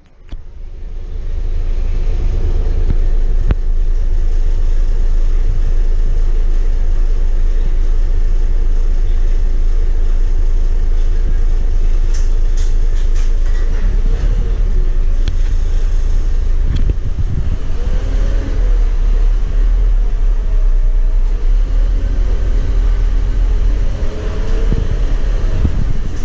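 The 8.9-litre five-cylinder Scania DC9 diesel of a 2008 Scania K230UB city bus heard from inside the cabin, idling with a steady low rumble. A little past halfway the bus pulls away, and the engine note rises and falls as it accelerates through the ZF six-speed automatic gearbox.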